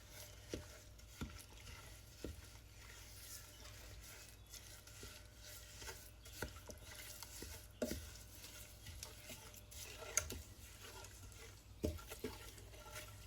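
A spoon stirring semolina cooking in ghee in a deep pot: faint scraping with a few soft knocks against the pot, the clearest about eight seconds in and near the end.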